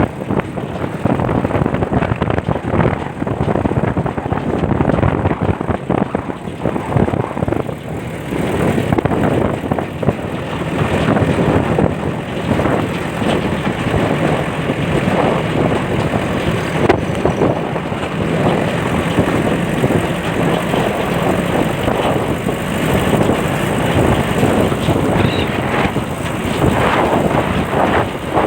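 Wind rushing and buffeting over the microphone in a moving car, with the car's engine running steadily underneath.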